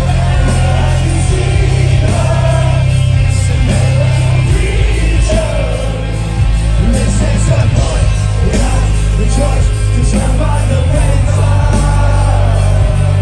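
Live rock band playing loud through the PA: electric guitar, bass guitar and drums, with a sung lead vocal over the top, heard from within the audience.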